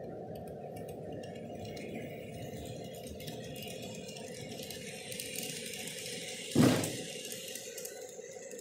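Model train running past on the layout track, a steady rattle of wheels and motor. About six and a half seconds in, a single loud thump rises above it.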